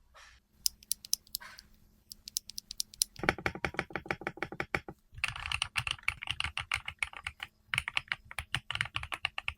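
Typing on a KiiBOOM Breeze 75 mechanical keyboard: a few scattered keystrokes at first, then fast continuous typing from about three seconds in, with short pauses around the middle and a little later.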